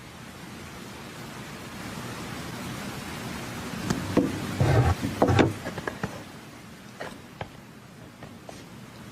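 Steady hiss, with a short cluster of knocks and clattering about four to five and a half seconds in, followed by a few lighter clicks.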